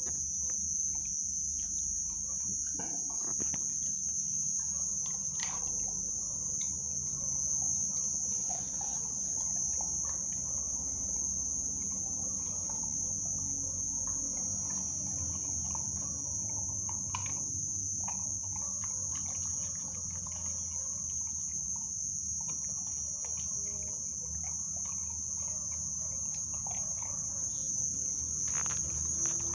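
Crickets chirring in a steady high band throughout, with faint scattered clicks of a pit bull puppy chewing and licking raw food.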